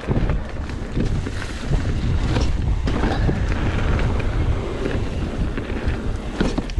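Wind buffeting the microphone over the low rumble of a Specialized Stumpjumper mountain bike riding a dirt trail, with scattered clicks and knocks from the bike.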